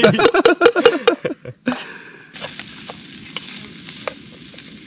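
A second or so of a man's laughing voice. Then shredded chicken sizzles in a pan on a portable gas cartridge camping stove, with a steady hiss and occasional faint scrapes of a wooden spatula stirring it.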